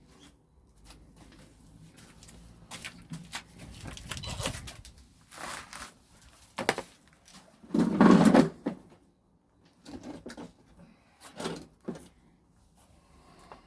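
Irregular knocks, clicks and clattering of things being handled by hand. The loudest is a short clatter about eight seconds in, with smaller knocks around it.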